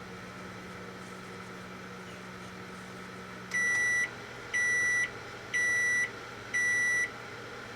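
Microwave oven running with a steady hum that stops about three and a half seconds in, followed by four evenly spaced high beeps signalling the end of the cooking cycle.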